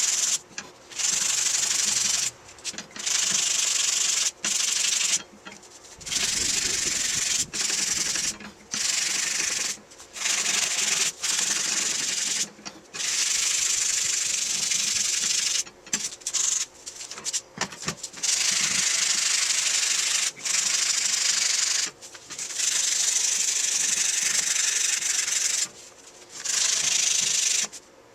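Repeated rubbing strokes: a high hiss, each stroke lasting about one to three seconds, with short breaks between them.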